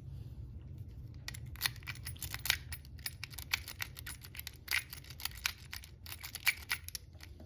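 Metal rake pick being worked in and out of a Kwikset pin-tumbler lock, raking the pins. It makes quick, irregular metallic clicks and scrapes, starting about a second in, over a low steady hum.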